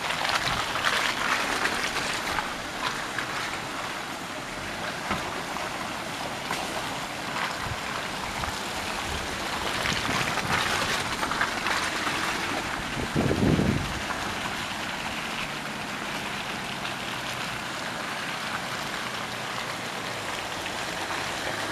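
Steady rush of shallow water running across a gravel track, with Ineos Grenadier 4x4s driving off over the gravel. The noise swells a few times as vehicles pass, most heavily about 13 seconds in.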